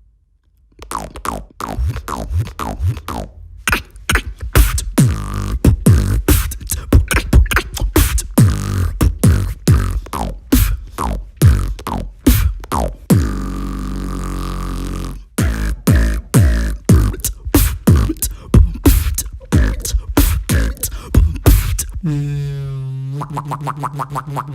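Beatboxing: fast mouth-made kick and snare-like hits, with a held pitched bass tone in the middle, then a rapidly pulsing, wobbling bass near the end.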